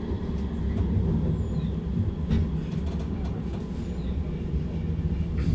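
Metrolink tram running, a steady low rumble heard from inside the car, with a couple of faint clicks.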